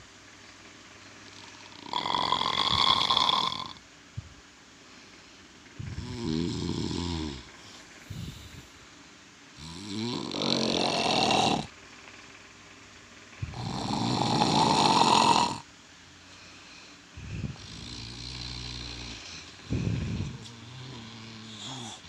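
A sleeping man snoring heavily and loudly: a rasping snore about every three to four seconds, the in-breaths loudest, with softer low rumbling snores between them.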